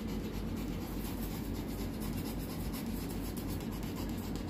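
Pomeranian panting hard with its mouth open, a steady rasping breath. Its owner says the dog has a narrowed trachea (tracheal collapse), which makes it breathe this hard.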